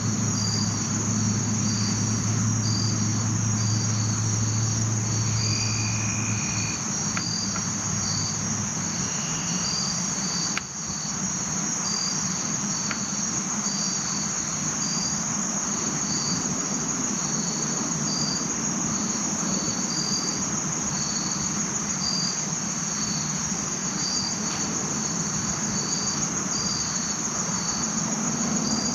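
Insects calling in the woods: a steady high-pitched drone with a pulsed chirp repeating about one and a half times a second. A low hum stops about seven seconds in.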